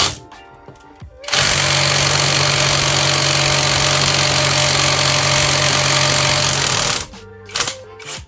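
Panzer PTIW-1180S 18V brushless cordless impact driver hammering a bolt tight. It runs in one loud burst of about six seconds, starting about a second in and stopping sharply near the end, as it drives the bolt toward a 140 Newton-meter setting.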